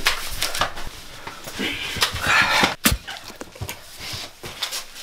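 A person breathing hard and straining amid shuffling and scattered knocks, with a sharp knock just before three seconds in.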